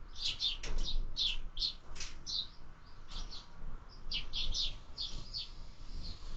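Sparrows chirping at a feeder: a busy, unbroken run of short high chirps, several a second, some overlapping as from more than one bird.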